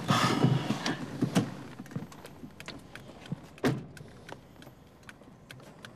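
Rustling inside a car, then scattered small clicks and one louder knock about three and a half seconds in.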